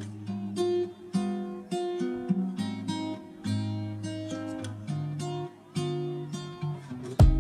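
Background music: an acoustic guitar playing plucked notes, a new note or chord about every half second. A louder passage with sharper attacks comes in near the end.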